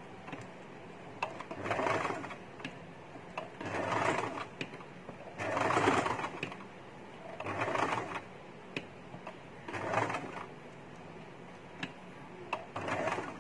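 Compact sewing machine stitching in short runs of about a second, one about every two seconds, with small clicks in between, as the fabric is turned little by little along a circle. It is sewing its longest stitch, a loose running stitch for gathering the fabric.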